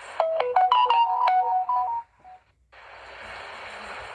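A short electronic tune of about a dozen quick notes, like a phone ringtone or notification melody, lasting about two seconds. After a brief silence, a steady hiss of background noise follows.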